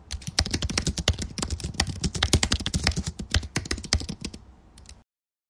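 Keyboard typing sound effect: rapid, uneven key clicks that thin out after about four seconds and stop shortly before the end.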